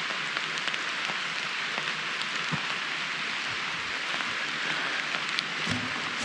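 Steady rain falling through the jungle at night, with scattered heavier drops ticking close by.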